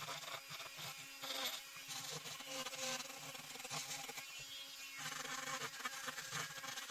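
Flexible-shaft rotary tool running with a steady buzz, its bit grinding the teeth of a sand-cast aluminium gear. The grinding noise swells and fades as the bit meets the metal.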